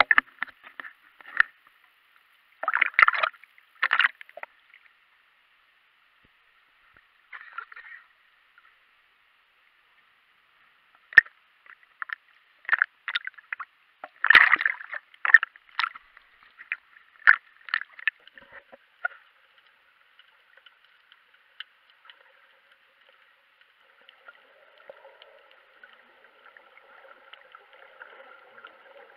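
Sea water splashing and slapping against an action camera in its waterproof housing held at the surface, heard muffled, in short irregular bursts with quiet gaps between them. In the last few seconds there is a faint, steady, muffled underwater hiss.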